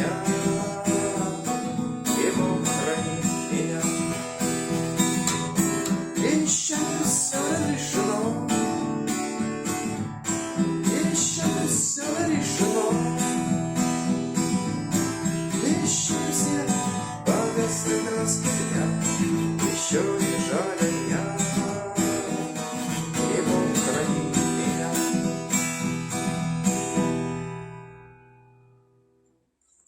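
Acoustic guitar strummed steadily through the song's closing chords, then the last chord rings out and fades away near the end.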